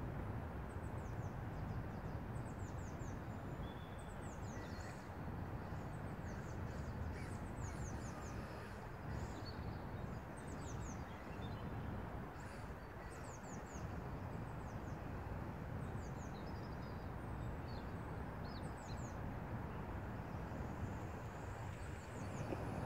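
Outdoor park ambience: small birds singing in short runs of quick falling chirps over a steady low background rumble.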